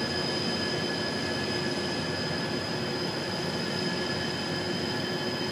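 Steady drone of a towboat's diesel engines and machinery, with several faint steady whining tones over an even rumble.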